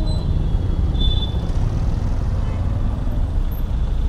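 Steady low rumble of street traffic, with a brief high tone about a second in.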